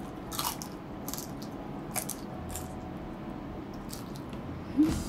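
Close-up chewing of crispy fried pork, with irregular sharp crunches and mouth sounds. A short hum from the eater near the end is the loudest sound.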